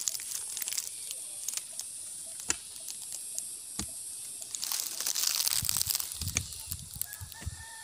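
Footsteps and rustling over dry soil and grass, with scattered clicks and a cluster of dull thumps from about five and a half seconds in, over a steady faint high hiss.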